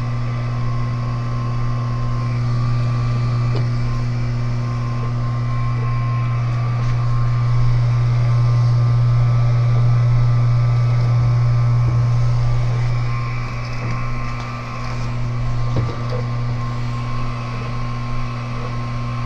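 Electric pump of a homemade biodiesel processor running with a steady low hum while it mixes catalyst into the oil. The hum wavers slightly in the second half.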